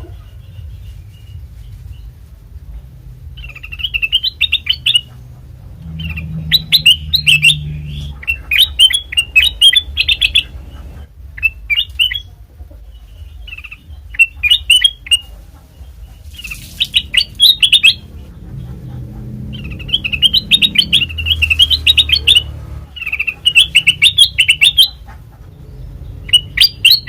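Kutilang emas, a bulbul, calling in repeated bouts of rapid chattering chirps, each a second or two long with short pauses between, over a low steady background rumble.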